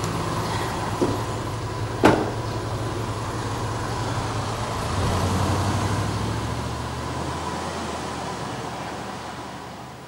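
Isuzu D-Max pickup's engine running, with a door shut with a sharp knock about two seconds in. The engine then grows louder from about halfway as the truck pulls away, and fades out near the end.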